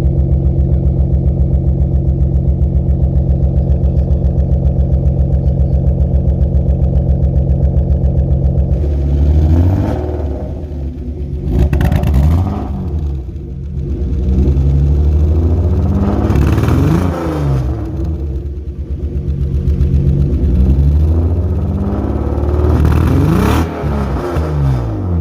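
BMW E36 engine and exhaust idling with an even pulse, then revved several times from about nine seconds in, the pitch rising and falling with each rev; the muffler is blown.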